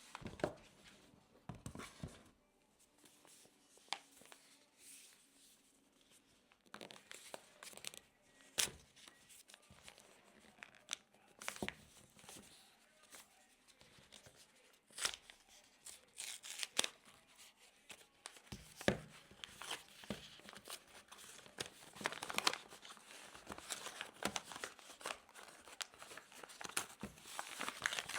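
Hands handling food and packaging at a kitchen counter: rustling, crinkling and tearing, with scattered sharp clicks and taps. It gets busier in the second half.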